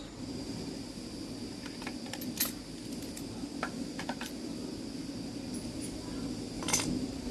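Small metal parts and tools clinking and tapping in scattered light clicks, two of them louder, about two and a half seconds in and near the end, over a steady low hum and a faint high whine.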